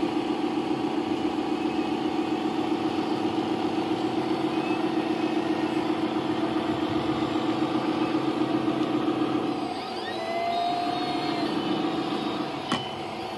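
Radio-controlled Volvo articulated dump truck driving, a steady droning hum with a fast pulse that cuts out about ten seconds in. A few faint whistling chirps and a single sharp click follow.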